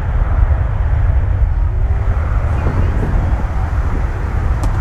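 Boeing 777-300ER's two GE90-115B turbofan engines at takeoff thrust as the airliner starts its takeoff roll: a steady, loud, deep rumble.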